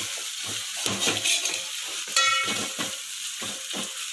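Pounded pepper, garlic, ginger and dried-chilli paste frying with tomatoes in a pan, a steady sizzle under a spoon stirring and scraping the pan about three strokes a second. A short ringing clink comes about two seconds in.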